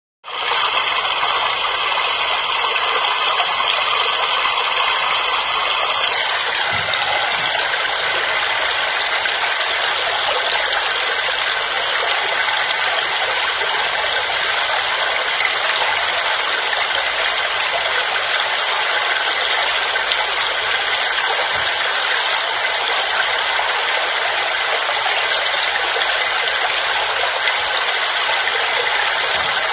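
Waterfall water rushing and splashing in a steady, even hiss, fading in at the start.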